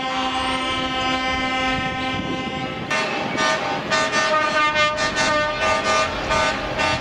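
Truck air horns sounding: one long steady blast for about three seconds, then a run of short repeated blasts, about three a second.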